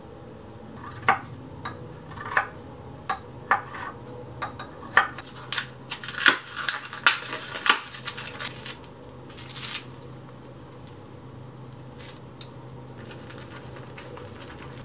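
Kitchen prep handling: a run of sharp clicks and taps from a spoon on a small ceramic dish and a plastic natto pack being opened and handled, thickest about six to eight seconds in, then dying away. A low steady hum runs underneath.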